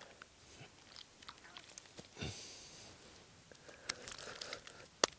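Faint rustling and crunching as hands handle the lambs on the grass, with a short hiss a little over two seconds in and several sharp clicks near the end.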